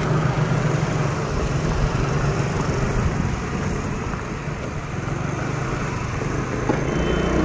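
Motorbike engine running steadily as the bike rides along, with wind rumbling on the microphone.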